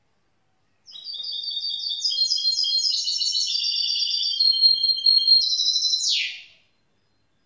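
Young goldfinch mule, a goldfinch × canary hybrid, singing one song phrase of rapid high twittering notes for about five and a half seconds, ending in a quick falling sweep.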